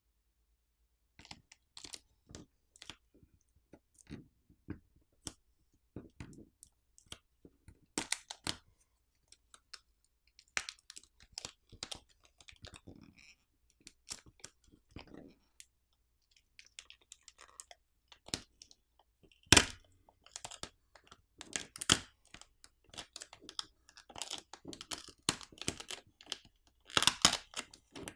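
Plastic adhesive pouch and film being peeled by hand off a smartphone's midframe, crackling and clicking irregularly, with a few louder snaps about twenty seconds in and near the end.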